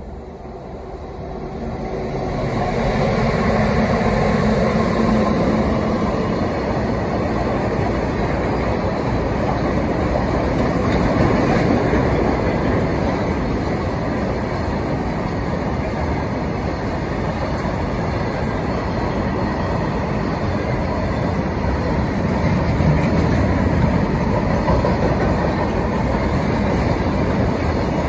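Electric-hauled goods train of tank wagons passing close by. The noise builds over the first few seconds as the locomotive arrives, then holds as a steady, loud rumble of wagon wheels running on the rails while the tank cars roll past.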